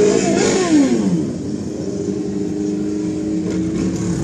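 Motorcycles riding past one after another. One passes close in the first second, its engine note dropping in pitch as it goes by. Then the next approaches with a steadier engine note.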